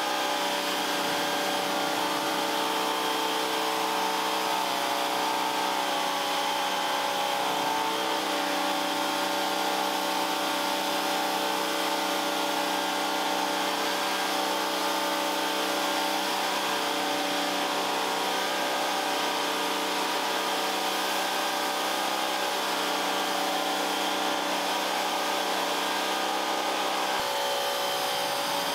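Vacuum cleaner motor running steadily, with a slight shift in its note near the end.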